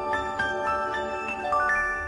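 Logo-sting jingle of bright, bell-like mallet-percussion notes, like a glockenspiel, struck one after another about three times a second, each ringing on and dying away toward the end.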